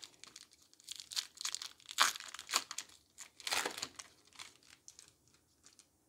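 Foil booster-pack wrapper crinkling and tearing as it is ripped open and the cards are pulled out: irregular crackles, loudest about two seconds in and again a second and a half later, dying away just before the end.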